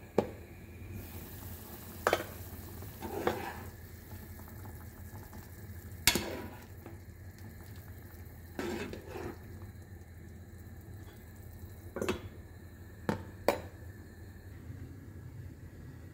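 Chicken pieces bubbling and sizzling in a pot of oil and juices on a gas hob, with a stirring utensil knocking sharply against the pot about eight times.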